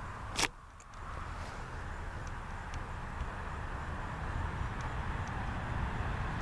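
A sharp click about half a second in, where the recording cuts, then a steady outdoor background of low rumble and hiss that slowly grows louder.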